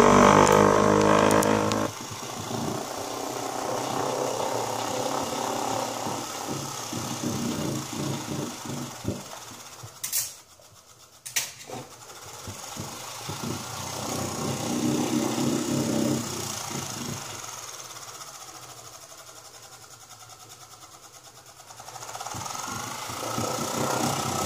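Small electric motor spinning the metal disc of an eddy-current brake rig, a running whine whose level and pitch rise and fall as the disc's speed changes. It drops sharply about two seconds in, nearly cuts out with a few clicks around ten seconds in, fades down in the second half and winds back up with a rising pitch near the end.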